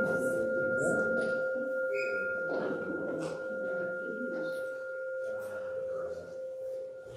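A bell struck once, ringing on as one pure low tone with a fainter higher tone above it, both slowly dying away. Soft room noise and a few small knocks lie underneath.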